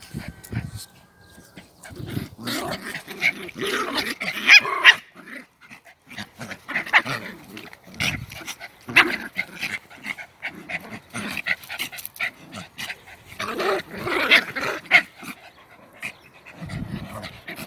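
A German Spitz mother dog and her puppy play-fighting, vocalising at each other in irregular bursts. The loudest stretches come a few seconds in and again about three-quarters of the way through.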